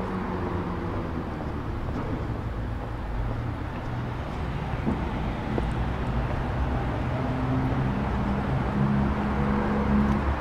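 City street traffic: a motor vehicle's engine hum over general street noise, growing slightly louder near the end.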